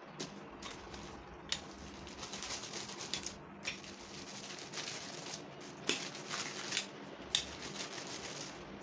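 Stainless-steel rolling pin rolling out bun dough on a cloth-covered tabletop: rustling strokes with scattered light clicks and knocks, a few of them sharper and louder.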